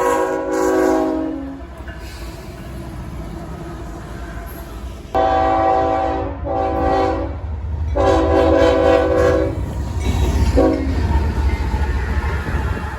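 CSX freight locomotive air horn sounding a series of blasts. One blast fades out in the first second and a half, two longer blasts come about five and eight seconds in, and a short toot follows near eleven seconds, all over the low rumble of the train rolling past.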